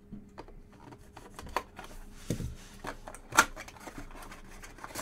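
Opening a sealed cardboard trading-card box: a blade slicing through its plastic wrap, then the cardboard flap pulled open, giving scattered scratches, crinkles and clicks. A dull thump comes a little over two seconds in, and the loudest, sharp click about a second later.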